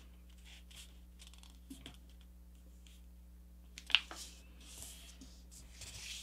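A sheet of paper being folded and creased by hand: faint rustling and sliding as the fold is pressed flat, with one sharp click just before four seconds in. A faint steady hum runs underneath.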